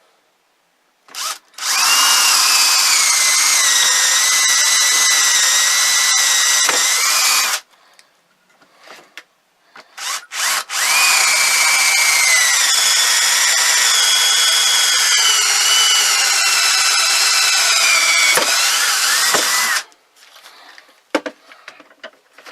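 Electric drill boring holes through a piece of wood, in two runs: a short burst, then about six seconds of drilling, and after a pause a second run of about nine seconds. Its whine dips slightly in pitch as the bit works through the wood.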